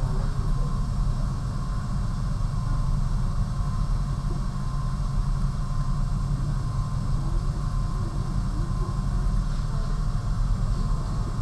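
Steady low rumble with a faint, even high hum above it, like machinery or ventilation running.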